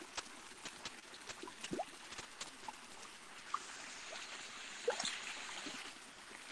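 Faint trickle of water into a fish tank, with scattered small clicks and splashes at the surface and a sharper splash about five seconds in.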